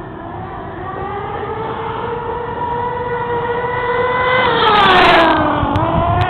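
Small nitro glow engine of a radio-controlled car running at a high-pitched whine, its pitch climbing gradually. It is loudest about five seconds in, with a short burst of noise, as its pitch drops sharply, the way a car sounds as it speeds past close by. Near the end the engine picks up again.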